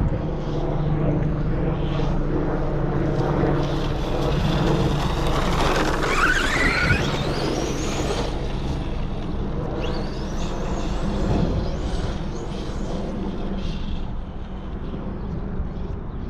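Arrma Kraton electric RC monster truck driving, its brushless motor whining up in pitch as it accelerates, once steeply in the middle and again briefly about ten seconds in, over a steady low rumble.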